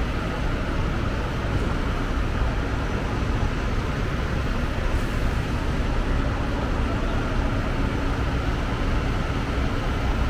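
Steady road traffic and engine noise on a city street, an even rumble with a faint steady hum running under it.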